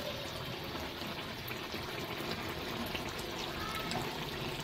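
Chicken curry simmering in its oily gravy in an iron kadhai: a steady bubbling sizzle with small scattered pops.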